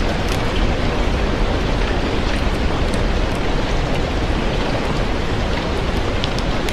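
Steady, dense rain, with a few faint ticks scattered through it.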